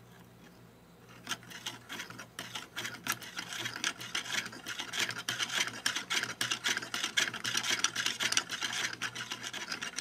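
3D-printed plastic Scotch yoke mechanism turned by hand: its plastic parts rub and clatter in a fast run of clicks that starts about a second in and gets faster and louder.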